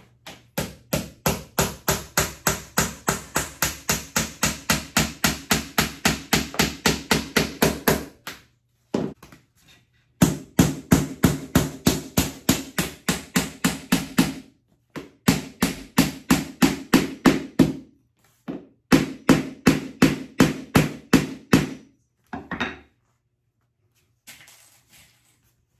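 Rapid hammer strikes, about five a second, in four runs of several seconds each with short pauses between, driving nails into floor trim; each strike rings briefly.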